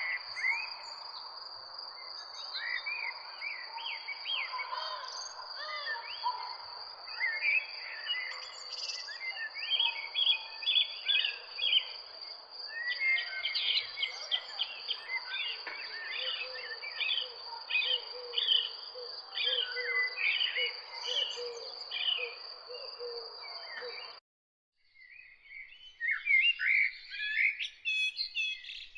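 Many songbirds chirping and calling over one another, with a steady high-pitched tone and a soft hiss underneath. The sound cuts off abruptly about 24 seconds in, and after a second of silence a different set of quick chirps begins.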